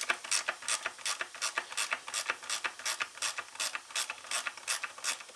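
Ratchet clicking in a steady run of about five clicks a second as a Torx screw holding the chainsaw's mount is backed out, stopping near the end.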